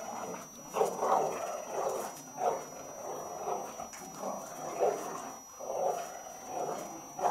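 Dogs vocalising in short, repeated bursts, about one a second, during a playful game of tug over a plastic toy.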